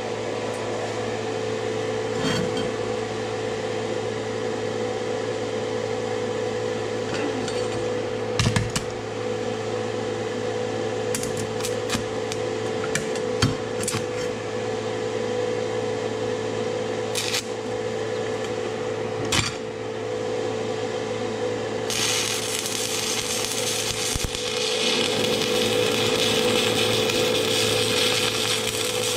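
Stick welder humming steadily while a 1/8-inch 7018 electrode is tapped and struck on steel plate, giving a few sharp clicks and taps. About two-thirds of the way in the arc catches and runs as a steady crackling hiss as a weld bead is laid, with the amperage set at a little above 124 amps.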